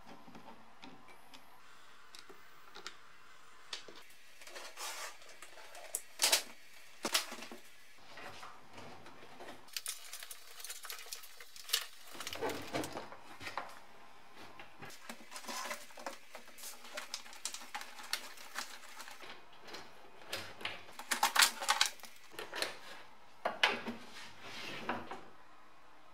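Irregular clicks, knocks and rattles of plastic and metal parts as a BMW E30 dashboard is taken apart by hand, with trim screws being undone and plastic pieces handled and set down. The sharpest knocks come about six seconds in and again near the end.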